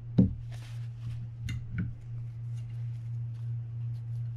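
Handling noise from small fishing-reel parts and hand tools on a towel-covered workbench. There is one sharp click about a fifth of a second in, then a few lighter clicks and a short rustle, over a steady low hum.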